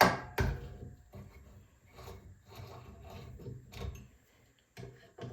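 Knocks and handling clatter from parts of a 2x72 belt grinder as the flat platen assembly is worked loose for removal: two sharp knocks at the start, then lighter, scattered knocks and rattles.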